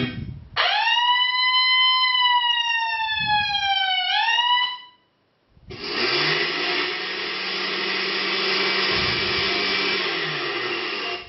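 An ambulance siren sound effect played back on a Logitech Squeezebox Touch: one wail that rises quickly, sags slowly and swoops back up before cutting off after about four seconds. After a short pause, a blender sound effect follows as a steady whirring noise with a low hum.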